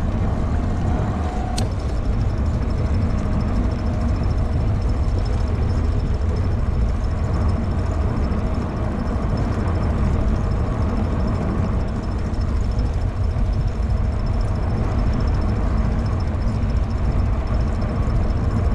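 Steady low rumble of wind buffeting the microphone while riding an e-bike, with a faint, thin, steady high whine above it.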